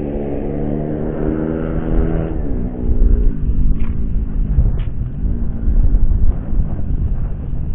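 A motor engine running, its pitch dipping and rising again several times, over a heavy low rumble. Two short sharp clicks sound about four and five seconds in.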